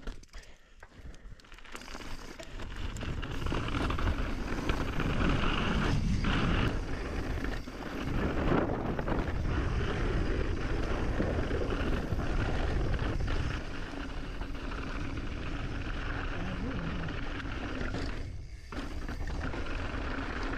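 Mountain bike riding down a trail on a body-mounted action camera: wind rushing over the microphone mixed with tyre and bike noise. It builds over the first few seconds, holds steady, and eases briefly near the end.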